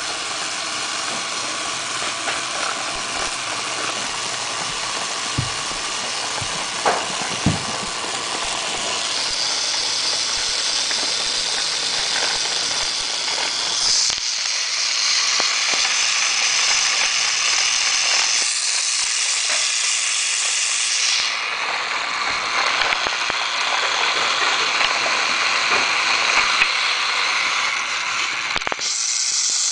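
Battery-powered plastic toy train running on its track, its small motor whirring steadily with the wheels rattling over the plastic rails; the whir changes in tone several times and there are a few light clicks and knocks.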